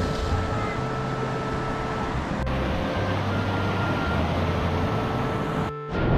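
Surf breaking and washing over a flat rock shelf: a steady rushing of waves and foaming water. It cuts out briefly near the end.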